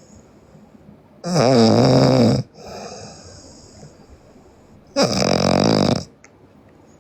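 A sleeping woman snoring loudly: two long snores about four seconds apart, each lasting about a second, with a softer breath after the first.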